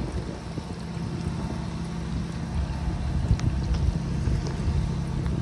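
Wind buffeting the microphone: a low, uneven rumble that rises and falls, with a few faint ticks near the middle.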